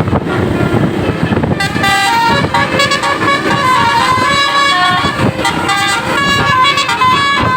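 Bus engine and traffic noise, then from about a second and a half in a bus's basuri telolet horn plays a tune of stepping notes over it.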